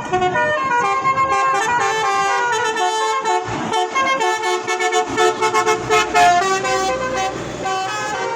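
Basuri telolet horn, a multi-tone musical vehicle horn, playing a tune of held notes that step from pitch to pitch, with a fast run of short staccato toots about five seconds in.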